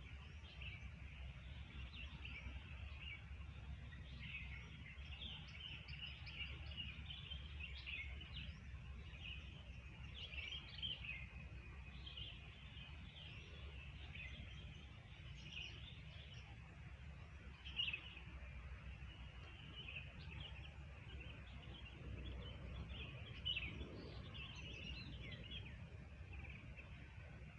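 Wild birds chirping, with many short, quick high notes, over a steady low rumble.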